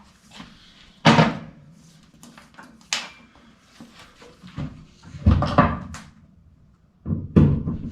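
Handling knocks and clunks from a track saw being set up: separate knocks about a second in, about three seconds in, a cluster around five to six seconds, and another near the end. The saw's motor is not running.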